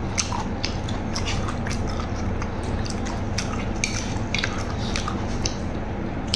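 Eating sounds: a metal spoon clinking and scraping on a metal tray, with chewing, as a string of short irregular clicks over a steady low hum.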